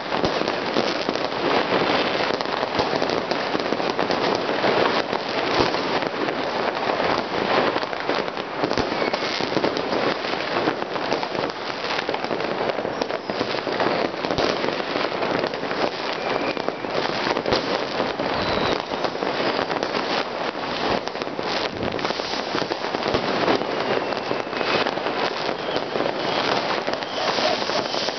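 New Year's Eve fireworks going off all over a city: a dense, continuous crackle and banging of many firecrackers and rockets, near and far, with a few faint whistles.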